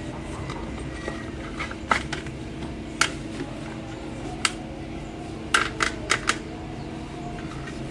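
Sharp clicks and taps of hard parts being handled while a telescopic sight is fitted to a PCP air rifle: a few single clicks, then a quick run of four near the end, over a steady low hum.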